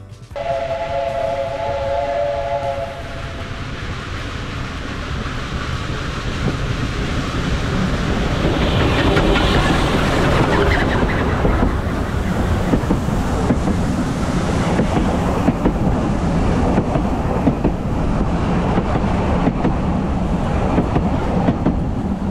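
Steam train's whistle sounding a steady chord for about two and a half seconds, then the train approaching and passing close by, its carriages rumbling and clattering over the rails, loudest from about eight seconds in.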